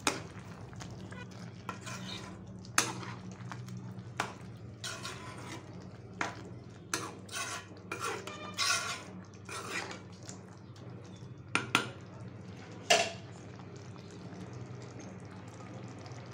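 Wooden spoon stirring thick chickpea curry in a nonstick pan, with scattered knocks and scrapes of the spoon against the pan. The knocks bunch together about halfway through and stop a few seconds before the end.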